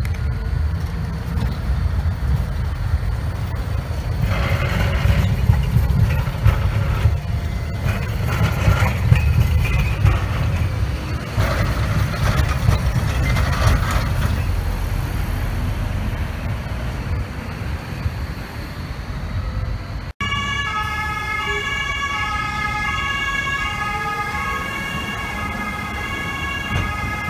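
Zürich trams running past close by on street track: a strong, steady low rumble of wheels on rail. After a cut about two-thirds of the way through, a set of steady, high-pitched tones starts and stops over the rumble.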